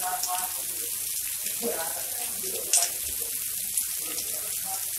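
Heavy rain falling steadily, a continuous hiss of rain on flooded pavement. Faint voices come through now and then, and there is one sharp tap a little over halfway through.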